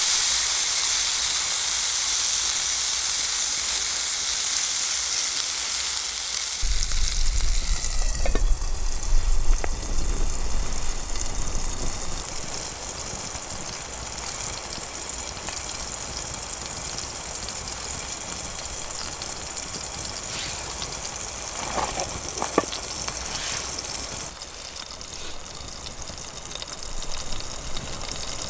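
Food sizzling in a hot pan over a campfire: a loud hiss that starts suddenly and slowly eases into a steady sizzle, with a few light knocks about eight to ten seconds in and again about twenty-two seconds in.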